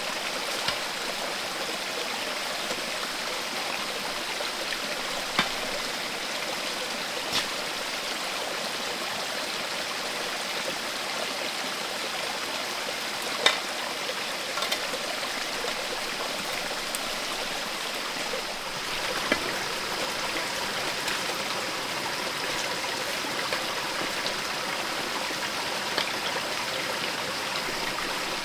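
Steady rush of flowing water, like a running stream, with a few sharp taps or clicks over it.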